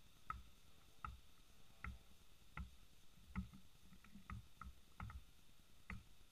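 Basketball bouncing on a plastic-tile court: faint regular bounces about one every three-quarters of a second, each a dull thud with a short ring. A little past the middle the bounces come quicker and uneven for a moment.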